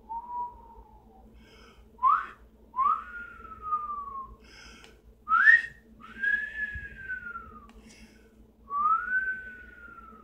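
A man whistling a slow, wordless tune: about six long notes, each swooping up quickly and then gliding slowly down in pitch.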